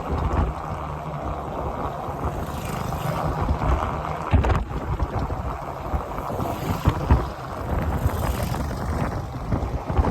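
Off-road vehicle driving over a rough track, a steady rumble with wind buffeting the microphone and a few sharp knocks from bumps.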